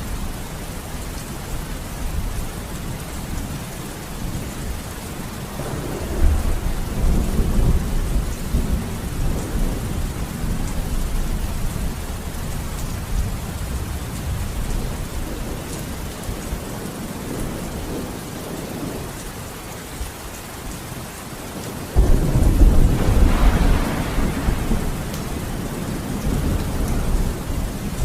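Steady rain with thunder: a rumble swells about six seconds in, and near the end a louder thunderclap starts suddenly and rumbles on for several seconds.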